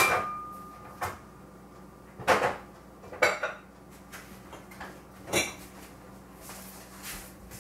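Kitchen clatter: about six separate knocks and clinks of dishes and utensils being handled, spaced a second or so apart, the first followed by a brief ringing tone.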